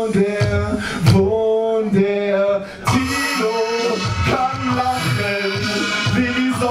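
A male voice singing a melodic line into a microphone over a hip-hop beat, with a steady kick drum and a held bass note, played live through a PA.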